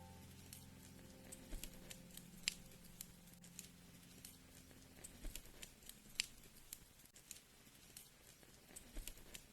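Wood fire crackling, with sharp pops scattered irregularly. A low, soft music chord fades out over the first few seconds.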